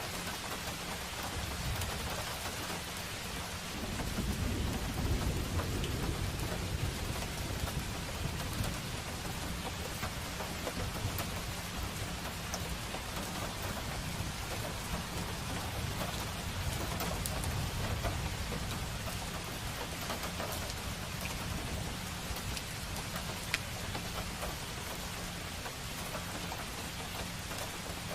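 Steady rain falling on a street, an even hiss with scattered sharp drop ticks, over a low rumble that swells about four seconds in.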